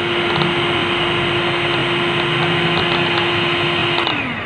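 Handheld electric mixer running steadily as it blends a bowl of cooling cold cream mixture. About four seconds in its hum drops in pitch as the motor slows.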